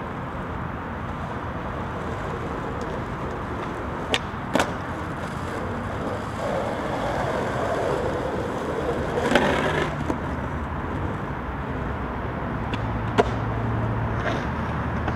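Skateboard wheels rolling on rough asphalt. About four seconds in comes a flip trick: the tail pops, then the board snaps down on the landing half a second later. Near ten seconds in the board scrapes along a concrete curb for about half a second, and a single sharp clack follows a few seconds later.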